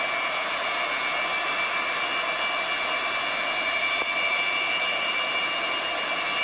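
Turbofan engines of an Antonov An-124 running as the jet taxis. A steady jet whine with a high, even tone sits over a rushing roar.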